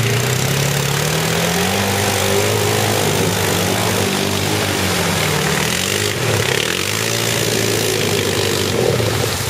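ATV engine revving up and down repeatedly as the quad churns through deep mud, its pitch rising and falling several times.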